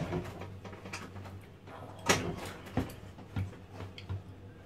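A few sharp knocks and clatters, the loudest about two seconds in, over a steady low hum inside a tower crane operator's cab.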